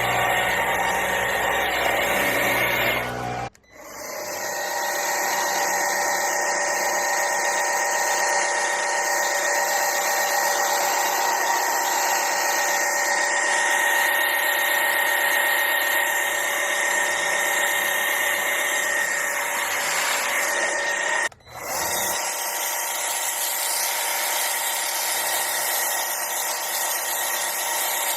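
Kebtek battery-powered pressure washer's electric pump motor running with a steady whine. It cuts out briefly twice, about three and a half seconds in and again about twenty-one seconds in.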